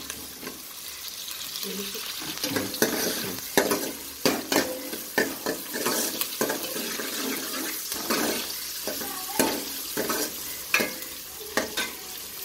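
Chopped onions and fenugreek sizzling in hot oil in a metal pot, with a steady hiss, while a metal ladle stirs them, scraping and knocking against the pot at irregular moments.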